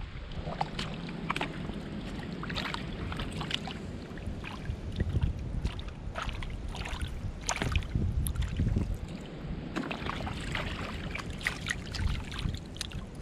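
A hand sloshing and squelching through shallow water and soft mud on a tidal flat, with many irregular small splashes and clicks, over a low rumble of wind on the microphone.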